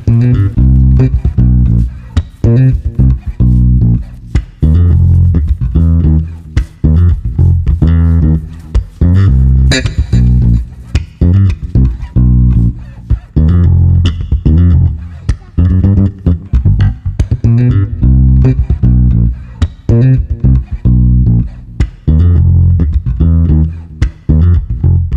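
Background music led by bass guitar and plucked guitar with a steady rhythm, fading out at the end.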